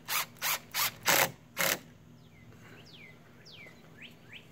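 Cordless drill driving a screw into a wooden post, run in about five short trigger bursts over the first two seconds. Then birds chirp several quick falling notes.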